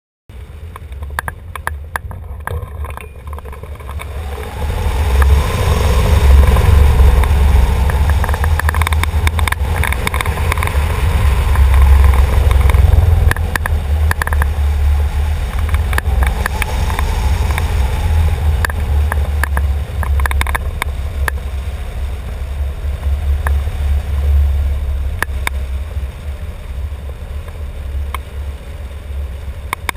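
Wind buffeting the microphone of a wing-mounted camera on a hang glider in flight: a loud, steady low rumble that cuts in suddenly, swells from about five seconds in, and eases slightly toward the end.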